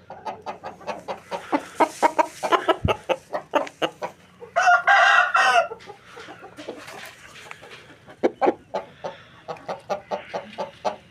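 Aseel rooster giving one short crow of about a second near the middle, amid rapid, repeated clucking from chickens before and after it.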